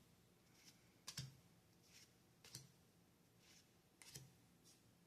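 Faint clicks and soft slides of trading cards being flipped through one at a time from a freshly opened booster pack: about five light clicks, spaced a second or so apart.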